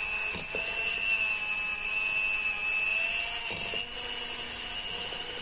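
Electric hand mixer running steadily with a high motor whine, its beaters creaming softened butter in a plastic bowl, with a few short clicks of the beaters against the bowl.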